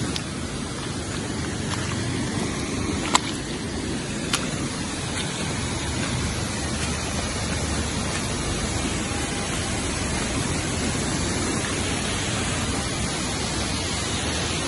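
Rain-swollen river rushing steadily over rocks, its flow raised by heavy rain upstream. Two short, sharp knocks come about three and four seconds in.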